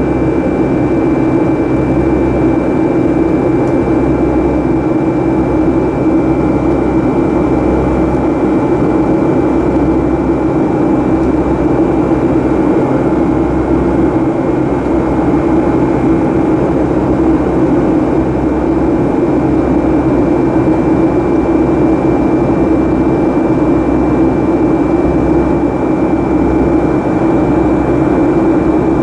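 Boeing 757-200's Pratt & Whitney turbofan engine running steadily at climb power, heard from inside the cabin: a loud, even drone with a steady high tone above it.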